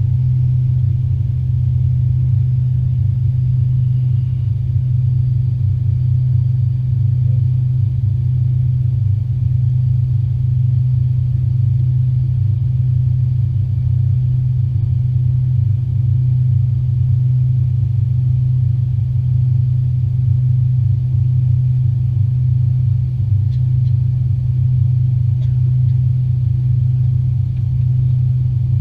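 Steady low drone inside the cabin of an Avro RJ85 airliner in flight, from its four Honeywell LF507 turbofan engines and the airflow, holding an even pitch and level throughout.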